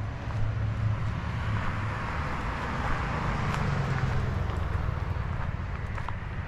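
A car passing on the highway, its tyre and road noise swelling to a peak about three seconds in and then fading, over a steady low rumble, with faint footfalls on a dirt path.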